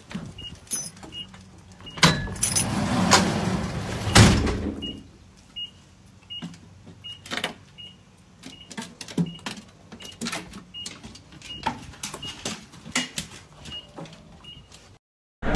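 Delivery truck's warning chime beeping steadily, a short high beep about every two-thirds of a second, with sharp clicks and knocks like a dog's claws on the truck's metal diamond-plate steps. A louder stretch of noise rises about two seconds in and fades by about five seconds.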